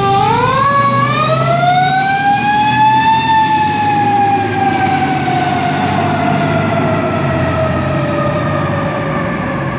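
Fire truck siren in one long wail, rising over about three seconds and then falling slowly, with the truck's engine running low underneath.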